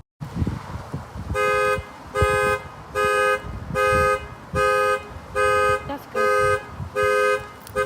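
A car's panic alarm pulsing the dual-tone horn in short, even honks, about five every four seconds, starting a little over a second in.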